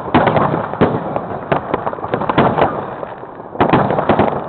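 New Year's fireworks and firecrackers going off all around, a dense run of sharp bangs and crackles several times a second. A new cluster of loud bangs comes about three and a half seconds in.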